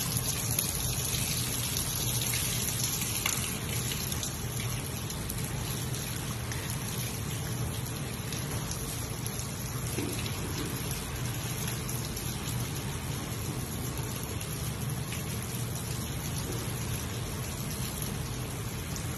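Water pouring from the rock wall into a bathing pool, a steady trickle and splash.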